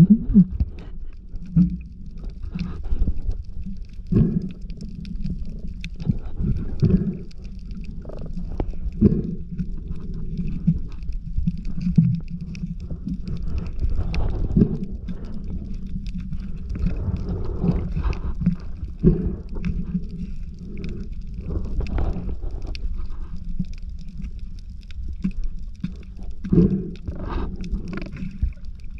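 Muffled underwater noise picked up by a submerged camera: a low rumble with irregular knocks and thuds, and faint crackling.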